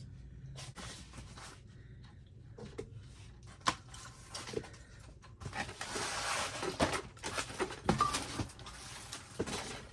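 Packaging and parts being handled: scattered light knocks and clicks, with a stretch of rustling a little past the middle, as the boxed pieces are searched through.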